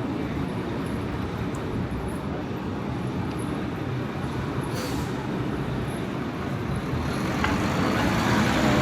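Road traffic on a busy city street: a steady roar of passing cars and buses, growing louder over the last couple of seconds as a vehicle approaches, with one brief hiss near the middle.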